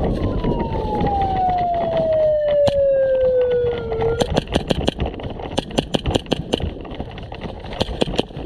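A siren-like tone slides slowly down in pitch and cuts off about four seconds in. Right after it an airsoft pistol fires rapid sharp shots: a quick string of about six, a second string of about seven, then three more near the end.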